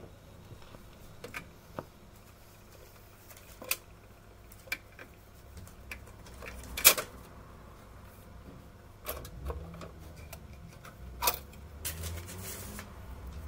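Irregular clicks, knocks and scuffs as a Fidelity HF 43 record player is handled: the tonearm is set back on its rest and the 45 rpm single is lifted off the turntable. The loudest knock comes about halfway through, and a low hum comes up near the end.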